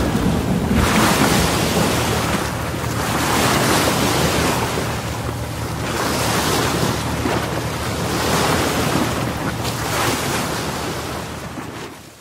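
Rushing surf with wind buffeting the microphone, swelling and ebbing every second or two, then fading out at the very end.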